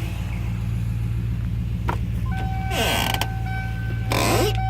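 Car engine idling with a steady low hum, settling smooth after a rough, shaking idle that the owner suspects is a misfire. Over it, a steady high tone starts about two and a half seconds in, and two brief creaking rushes come about two and a half and four seconds in.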